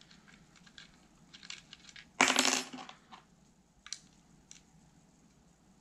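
Allen key clicking faintly in the screws of an iOptron SkyGuider Pro's housing as they are loosened. About two seconds in comes a short, loud metallic clatter that rings for about half a second, followed by a few more light clicks.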